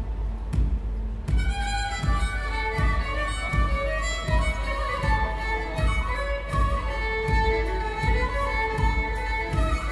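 Symphony orchestra playing over a steady low beat, with bowed strings and a violin melody coming in about a second and a half in.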